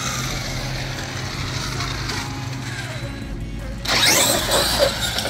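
A radio-controlled truck's tyres scrubbing and skidding on asphalt through a sharp turn: a sudden loud, harsh rasp starting about four seconds in and lasting about a second and a half, over a steady low hum.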